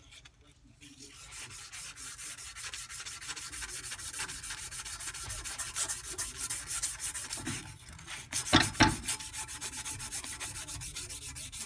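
A strip of 180-grit sandpaper is pulled rapidly back and forth around the journal of a Tecumseh Snow King snowblower crankshaft, rubbing the scored metal smooth. The rubbing starts about a second in and pauses briefly past the middle. Two louder knocks follow before the rubbing resumes.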